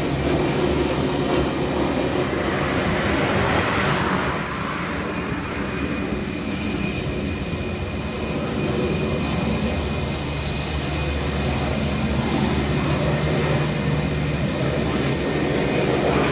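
Airbus A320's twin jet engines at taxi power as the airliner taxis and turns on the runway: a steady rumble with a thin high whine.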